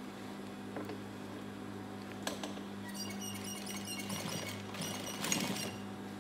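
Gemsy industrial sewing machine humming steadily, with a short run of fast ticking from about three to five seconds in and a brief rustle of denim being handled near the end.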